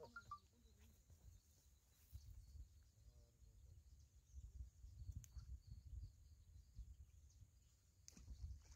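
Near silence: faint outdoor riverbank ambience, a low uneven rumble with a few faint bird chirps and scattered light clicks.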